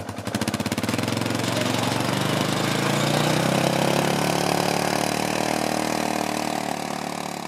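Engine of a side-by-side utility vehicle on rubber snow tracks, running as it drives past. It starts as a rapid, even pulsing, grows louder and steadier toward the middle, then fades as the vehicle moves away.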